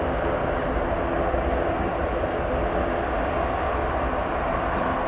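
Airbus A330-323's twin Pratt & Whitney PW4000-series turbofans running at takeoff power: a steady, even jet noise with no rise or fall.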